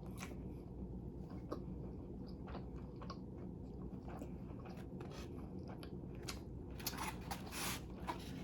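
A person chewing food close to the microphone: soft wet mouth clicks and smacks, over a faint low hum. The chewing gets busier about seven seconds in.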